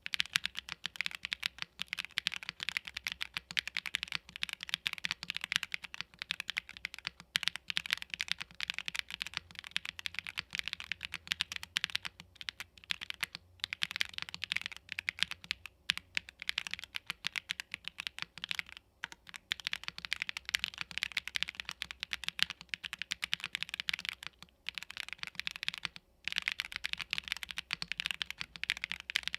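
Fast, continuous typing on a Tofu65 2.0 65% mechanical keyboard with Gateron Baby Raccoon linear switches and PBT keycaps on an FR4 plate. The keys clack in quick runs, broken by short pauses every few seconds.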